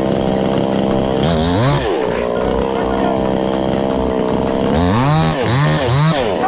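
Two-stroke petrol chainsaw engine running at idle. It is revved up and back down once about a second in, then blipped three times in quick succession near the end.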